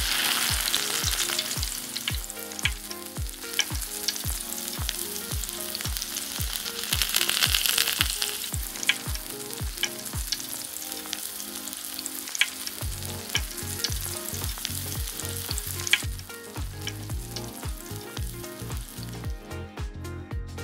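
Bacon strips frying in hot oil in a small brass pan, a dense sizzle that starts suddenly as the bacon goes in and swells for a moment partway through, with a few sharp clicks of metal tongs against the pan. The sizzle breaks off about three-quarters of the way through.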